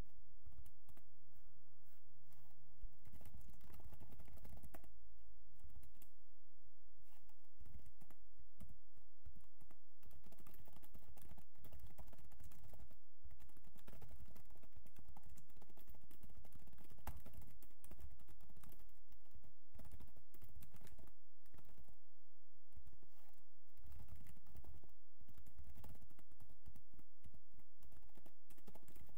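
Typing on a computer keyboard: a run of irregular keystroke clicks in quick bursts with short pauses.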